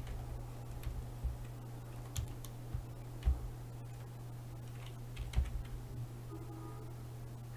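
Computer keyboard being typed on: irregular, scattered key clicks and thumps over a steady low hum.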